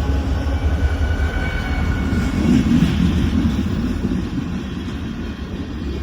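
Train rumbling past, a loud low rumble that swells in the middle and fades over the last couple of seconds. Faint steady tones sound in the first two seconds.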